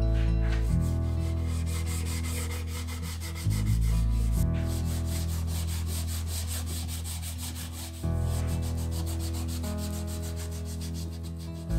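Background music of held chords over a low bass, with a fast, even brushing rhythm running through the second half.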